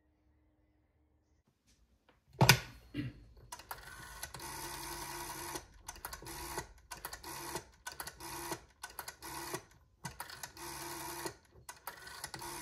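Black Bakelite rotary-dial telephone being used: a sharp clatter as the handset is lifted off its cradle, then the dial running back over and over as a number is dialled, each return a short mechanical whirr with brief pauses between digits as the dial is wound round again.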